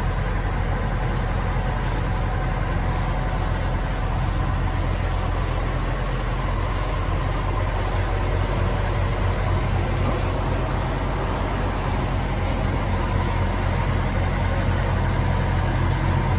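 Narrowboat's diesel engine running steadily at cruising pace, heard inside a brick canal tunnel.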